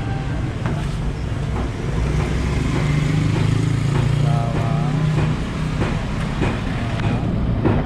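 Street traffic: a motor vehicle engine running with a steady low hum, louder for a couple of seconds midway, with background voices and occasional light clicks.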